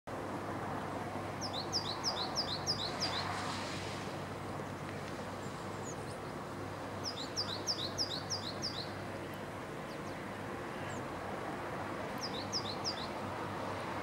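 Male great tit singing its two-note song in three phrases, each a quick run of a high note followed by a lower one. The first two phrases have about six pairs each; the last, near the end, is shorter with three. A steady background hum runs underneath.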